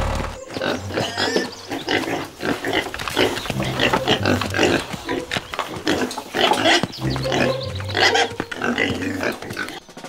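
Pigs grunting in a dense run of short, irregular calls, dubbed over the toy pig figures.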